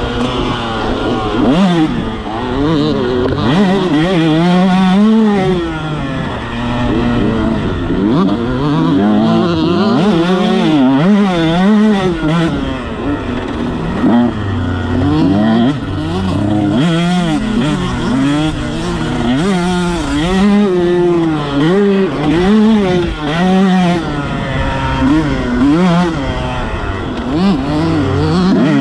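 Motocross bike engine being ridden round a dirt track, revving hard and easing off again and again, its pitch climbing and dropping every second or two with the throttle and gear changes.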